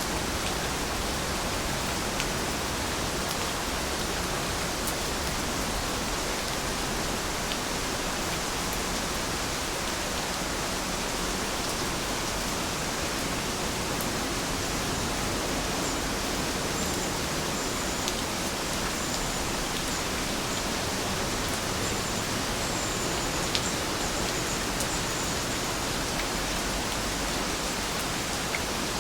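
Steady rain falling: an even hiss with scattered faint ticks of drops.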